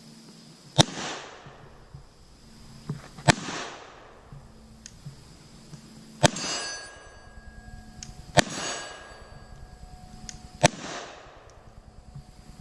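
Five 9mm pistol shots from a SIG SP2022, fired slowly about two to three seconds apart. Each shot is followed by an echo, and the later ones by the faint ring of a hit steel target.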